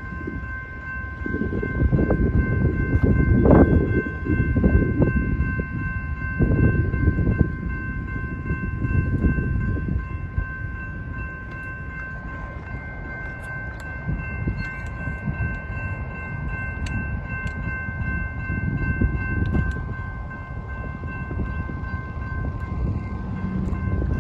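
Railroad grade-crossing warning bells ringing steadily as the crossing activates and the gate arms come down, under gusts of wind on the microphone. One of the bell tones drops out about twenty seconds in and another near the end.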